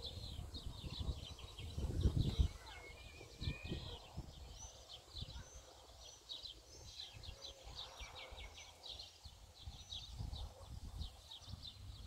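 Several songbirds singing, a dense run of quick, repeated high chirps and short trills. Low rumbling buffets on the microphone are loudest in the first two and a half seconds, then ease off.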